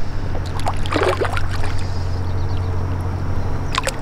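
A hooked chafalote thrashing and splashing at the water's surface, a few short splashes about a second in and again near the end, over a steady low hum.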